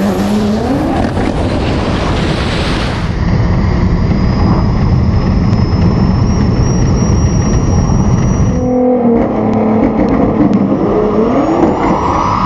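Cars accelerating hard down a drag strip. The Nissan GT-R's twin-turbo V6 rises in pitch as it revs, over heavy wind and road noise, and a high whine climbs slowly in pitch. The sound cuts off sharply about nine seconds in, and an engine is then held steady before rising steeply in pitch again.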